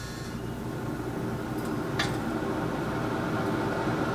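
Cook's Essentials air fryer's fan running with a steady whir just after starting, growing a little louder, with a single click about two seconds in.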